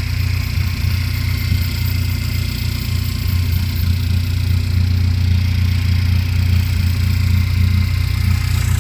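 2013 Cadillac ATS 2.0-litre turbocharged four-cylinder engine idling, running rough with a misfire on cylinder 4.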